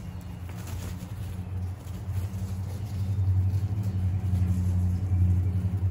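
A low, steady engine hum that grows louder about two seconds in.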